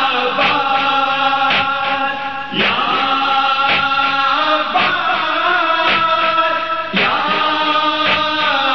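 Urdu noha lamentation chant: voices hold long, drawn-out notes that slide into a new phrase twice. Sharp beats keep a steady rhythm under them.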